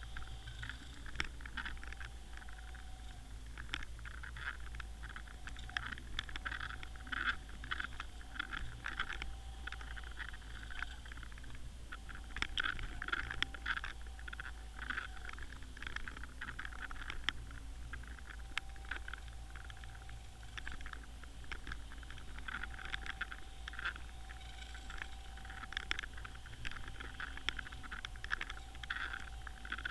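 Underwater sound picked up by a submerged camera in a lake: a steady low hum under dense, irregular crackling and clicking, with a faint mid-pitched tone that comes and goes every few seconds.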